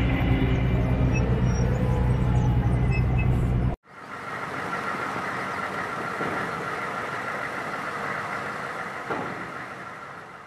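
M113-type tracked armoured carrier's diesel engine running with a deep, steady hum. About four seconds in it cuts abruptly to a steadier vehicle running sound with a faint whine, heard from a vehicle's cab as it drives across the floating bridge deck, fading near the end.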